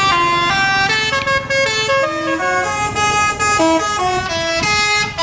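Telolet musical horn of an Indonesian tour bus playing a fast melody: a continuous run of loud horn notes, each held a fraction of a second before jumping to the next pitch.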